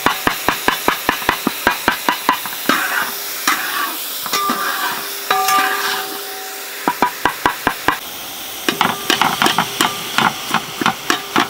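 A metal spatula repeatedly knocks against a metal pan while it pounds and breaks up boiled tender jackfruit pieces as they fry. The knocks come at about four a second at first, then break off for a few seconds around the middle before starting again.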